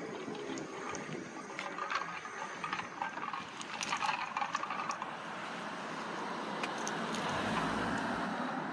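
Riding noise from an electric bike under way: a steady rush of wind and road noise, with light rattling clicks over bumps in the first half and a low rumble swelling near the end.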